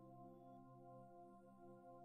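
Very faint ambient background music: several soft, sustained tones held together in a slowly shifting drone.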